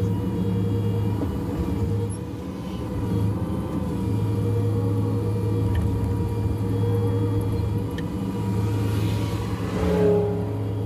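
Diesel engine of a Cat 305.5E2 mini excavator running steadily under working load. The engine dips briefly twice and swells again near the end.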